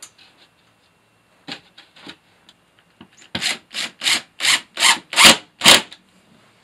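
Rhythmic rasping strokes on a half-inch gypsum drywall sheet as it is worked into place: a few faint scrapes, then about eight louder rubbing strokes at roughly three a second, growing louder.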